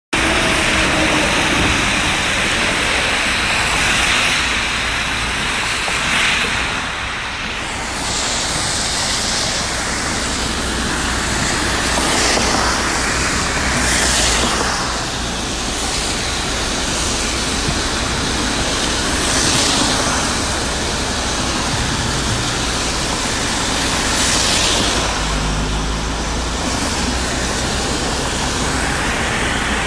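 Car driving through standing water on a flooded motorway in heavy rain, heard from inside the cabin: a steady rush of tyre and road noise, with a hissing swell of spray every few seconds as vehicles pass.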